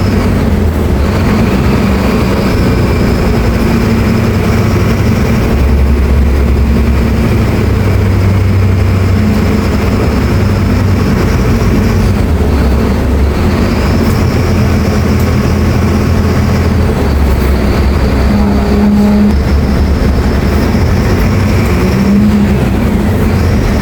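Mercedes-Benz OF-1724L BT5 bus's diesel engine running under way, its low drone changing pitch several times as the bus pulls and changes gear, with a steady high whine over it that drops out briefly a few times.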